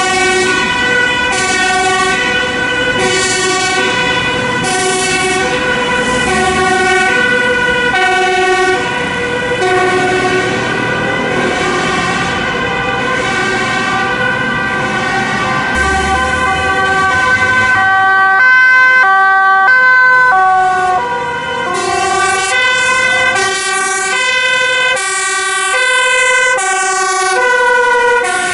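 Two-tone emergency sirens of a Dutch fire service rapid-response van on an urgent call, switching between a high and a low note about once a second. More than one siren sounds at once, and in the last third the notes alternate faster.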